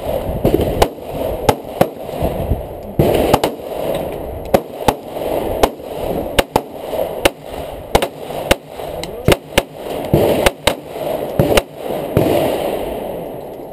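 Several handguns firing at a range: sharp shots at an irregular pace, some in quick pairs and overlapping, stopping near the end.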